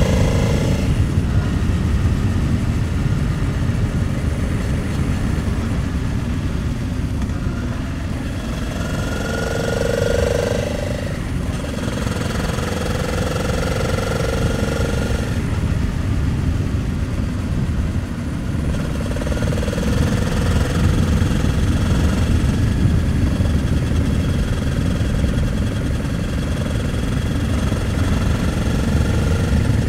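Honda Transalp 700's V-twin engine running at road speed under a heavy rush of wind and road noise, its note shifting up and down a few times through the bends.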